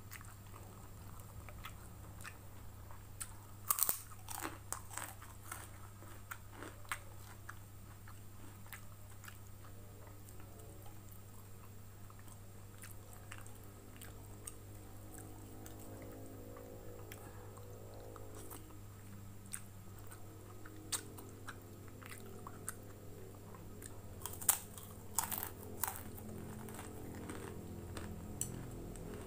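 Close-up eating sounds of a kerupuk cracker being bitten and crunched, with chewing in between. A cluster of crisp crunches comes about four seconds in, and another near the end, over a steady low hum.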